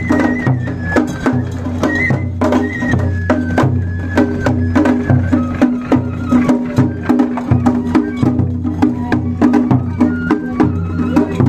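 Japanese festival float music (matsuri bayashi): a high flute plays a stepped melody over repeated low taiko drum beats and rapid sharp clicking percussion.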